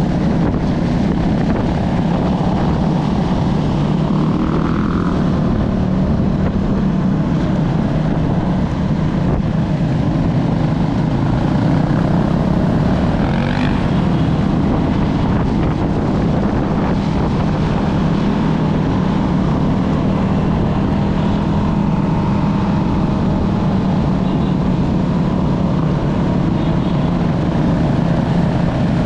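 Motorcycle engine running at steady revs while riding, a constant drone with no gear changes or pauses.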